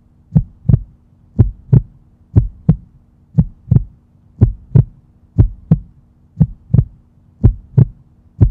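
Heartbeat sound effect: paired lub-dub thumps about once a second, steady and even, over a faint steady hum.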